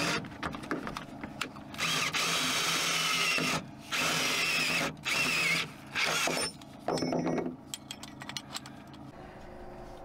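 Power drill running in about six start-stop bursts, the longest about two seconds, as a 9/16-inch twist bit bores through the lined steel floor of a pickup bed. It stops after about seven seconds, leaving a few light clicks near the end.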